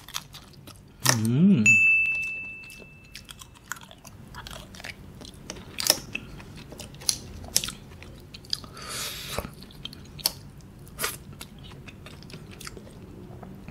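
Close-up eating sounds of lala clams: chewing, lip smacks and small clicks, and a short slurp about nine seconds in as meat is sucked from a shell. An appreciative "mmm" hum comes about a second in, followed by a brief thin high tone.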